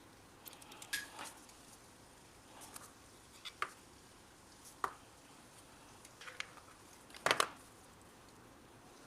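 Scattered light clicks and taps from small objects being handled, the loudest a close double click about seven seconds in.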